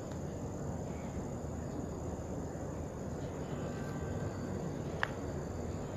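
Steady low rumbling outdoor background noise, with one sharp click about five seconds in.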